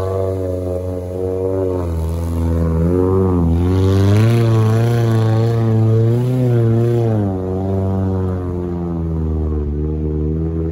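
An off-road vehicle's engine running close by at a steady, low-revving pace. Its pitch wavers up and down a little a few times around the middle, then it runs steadier near the end.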